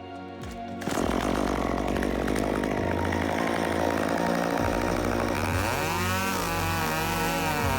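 Chainsaw running at full throttle through the final back cut on a pine top, coming in loud about a second in. From a little past halfway, its engine pitch dips and rises repeatedly as the saw loads in the wood.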